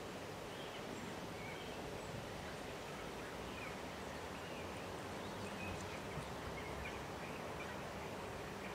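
Steady outdoor background noise with faint, scattered small bird chirps.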